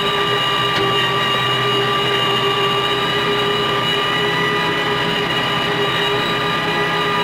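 Antonio Carraro 10400 TTR tractor's diesel engine running steadily under load, heard from inside the cab while it drives a BCS Rotex NT R6 mower through grass. A steady whine from the mower's drive sits over the engine drone.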